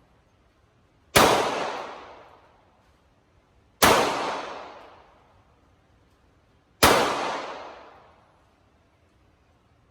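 Three single shots from a Glock 43 9 mm pistol, spaced about three seconds apart, each sharp crack followed by a long echoing decay.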